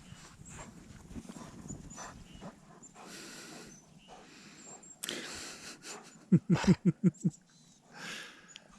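German Shepherd playing in deep snow: faint crunching and snuffling, a louder scuffle about five seconds in, then a quick run of about six short vocal pulses from the dog.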